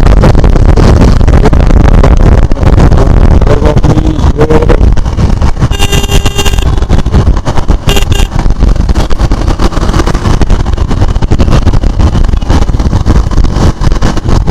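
Riding noise on a KTM Duke 390: loud wind buffeting on the microphone over the running engine. A brief pitched tone sounds about six seconds in, and a shorter one about two seconds later.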